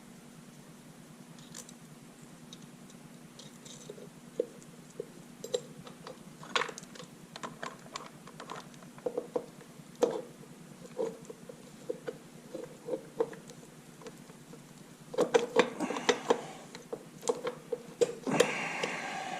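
Small metal tools and parts clicking and clinking now and then during hands-on reassembly of a motorcycle primary drive, growing busier and louder near the end.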